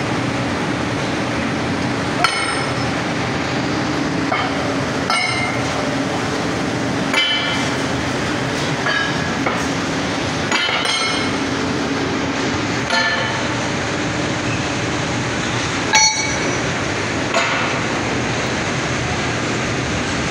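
Heavy steel billets clanking and ringing as they are levered and moved, a sharp metallic clank every couple of seconds with the loudest about three-quarters of the way through, over a steady drone of mill machinery.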